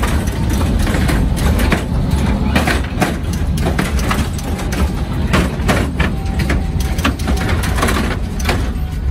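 Low, steady rumble of a mini truck's engine running, with scattered clicks and knocks over it.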